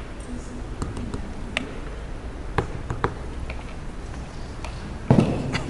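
Scattered light clicks and taps of kitchen utensils being handled during food prep, with a short, louder, noisy knock or rustle about five seconds in.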